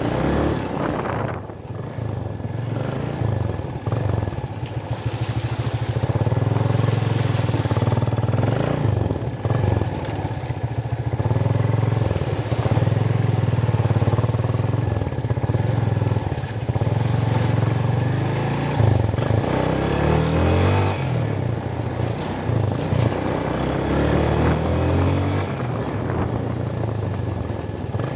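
Yamaha motorcycle's engine running steadily at riding speed, its pitch wavering a little with the throttle. Wind rushes over the microphone as the bike moves.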